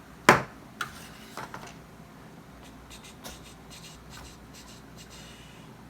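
A sharp clack, then a few lighter clicks and faint scraping: small hand tools and plastic parts being handled.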